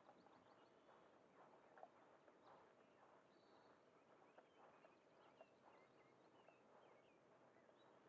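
Near silence: faint outdoor ambience with a few faint, high bird chirps.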